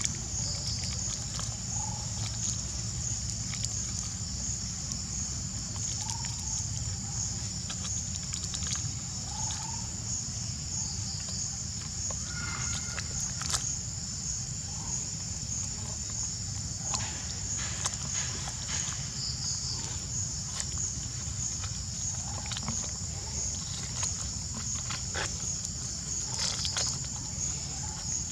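Steady high-pitched insect drone over a low outdoor rumble, with scattered light clicks and rustles and a couple of brief chirps.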